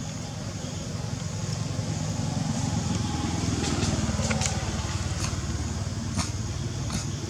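A motor vehicle's engine running close by, its low rumble swelling to a peak partway through and then easing off as it passes. A few sharp clicks are heard.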